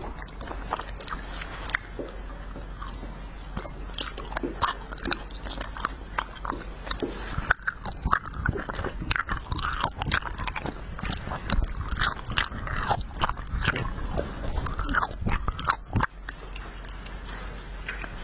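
Close-miked chewing and biting of wax bottle candy: a stream of short crunches and crackles from the wax between the teeth, busiest in the middle stretch.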